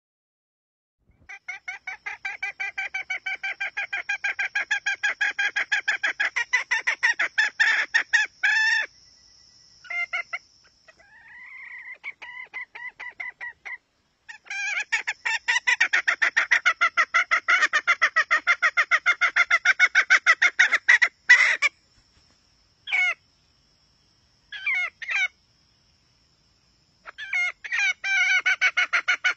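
Red junglefowl hen calling: long runs of rapid clucks, broken by a short rising call and a few single clucks, the kind of call used to lure wild junglefowl.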